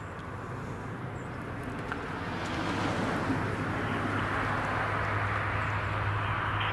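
Approaching freight train led by EMD SD50-2 diesel locomotives: a steady low engine drone with a broader rushing noise that swells and grows louder from about two and a half seconds in.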